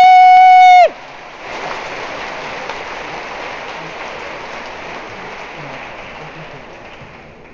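A loud held high note cuts off just under a second in, then audience applause starts and slowly fades away.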